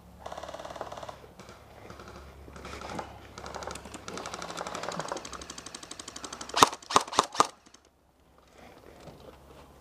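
Airsoft guns firing in rapid full-auto bursts, a fast rattling clatter of shots. About two-thirds of the way through come four sharp, loud cracks in quick succession.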